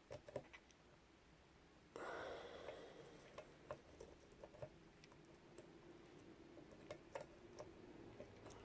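Faint, irregular clicks and ticks of a lock pick working the pin tumblers of a Lockwood 334C45 padlock under light tension, with a soft rushing noise rising about two seconds in.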